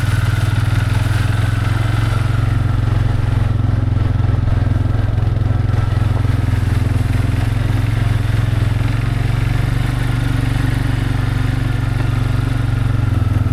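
Vehicle engine running steadily at low speed while driving over a muddy farm track, a constant low drone.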